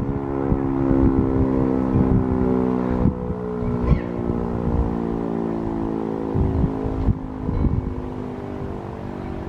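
Sentry 3V8 three-phase electromechanical warning siren sounding its alert signal: one steady, unwavering tone with many overtones, slowly getting quieter toward the end. Irregular low thumps sound underneath.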